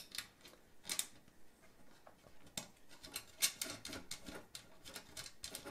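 Light metallic clicks and taps of a metal TV-mount bracket and its bolts being handled while bolts are fitted to its back, scattered and more frequent in the second half, with a sharper knock about three and a half seconds in.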